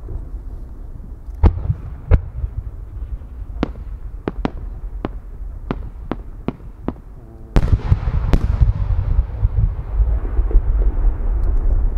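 Large Japanese aerial firework shells going off: about ten sharp cracks over the first seven seconds, then two heavy booms under a second apart, followed by a long rolling rumble.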